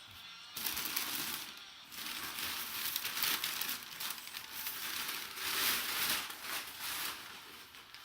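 Packaging crinkling and rustling as an item is unwrapped, starting about half a second in with a short pause near two seconds.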